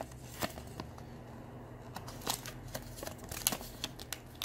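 Paper leaflets and plastic wrapping from a toy package being handled, giving scattered light crinkles and clicks over a low steady hum.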